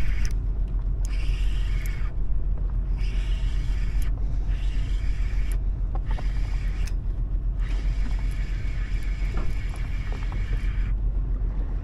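Steady low rumble of a fishing boat's engine, with a higher hiss that comes and goes every second or two.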